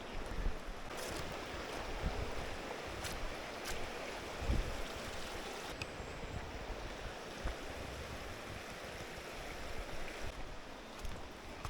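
Mountain stream flowing steadily, water rushing over rocks, with a few light clicks over it.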